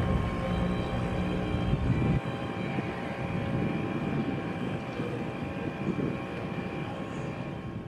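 Small dinghy outboard motor running at half throttle, a steady drone; the engine is new and still being broken in. A low rumble under it drops away about two seconds in.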